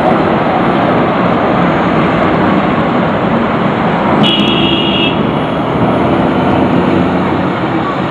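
Loud, steady city street traffic noise, with a short high-pitched tone about four seconds in.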